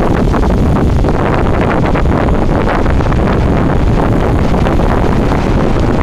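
Strong wind buffeting the camera microphone, loud and constant, over big ocean surf breaking and washing up onto a sand beach.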